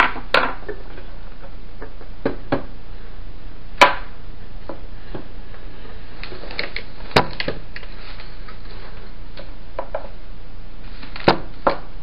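Hard plastic parts of an old fan knocking and clicking as the fan is taken apart by hand: about eight scattered sharp knocks, a few of them louder, over a steady low hum.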